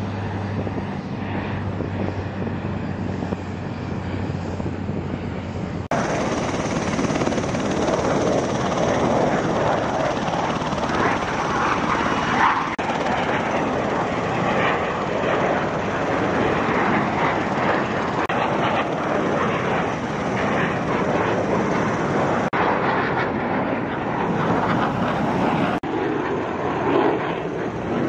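A C-130 Hercules turboprop climbing out with a low, steady propeller drone. After a cut about six seconds in, the loud, even jet roar of F/A-18 Hornets flying past carries on through the rest, across a couple of brief cuts.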